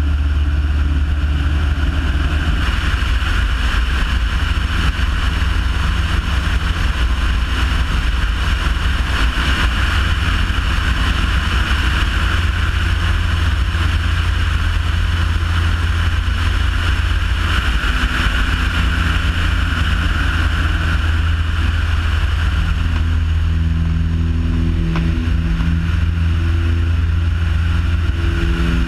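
Single-engine propeller light aircraft's engine and propeller running steadily in flight, with wind rushing over the wing-mounted microphone. The engine note changes near the end as the plane manoeuvres.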